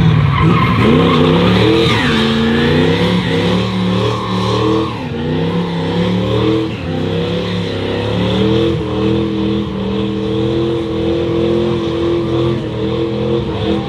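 1957 Chevrolet Bel Air doing a burnout: the engine revs up sharply at the start, then is held at high revs, wavering up and down, over the steady screech of the spinning rear tyres.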